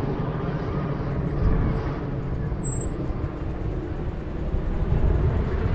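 Steady low rumble of a motor vehicle, with no clear change in pitch.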